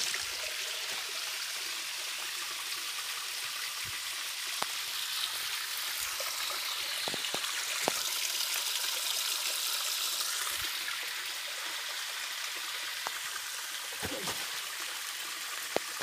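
Steady rush of river water, an even hiss, with a few faint knocks scattered through.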